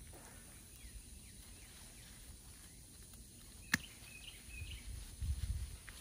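Quiet garden background with a few short bird chirps a little past halfway. One sharp click comes about two-thirds of the way in, and a low rumble builds near the end.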